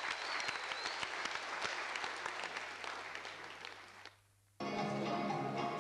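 Audience applauding in a hall, the clapping fading away about four seconds in. After a brief silence, music starts near the end.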